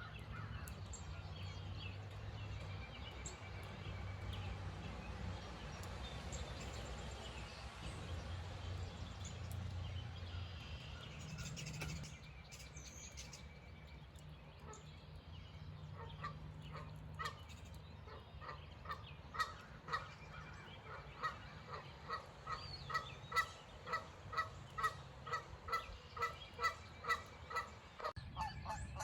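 Birds calling over a low, steady rumble. Scattered chirps come first, then from about two-thirds of the way in a regular run of honking calls, about two a second.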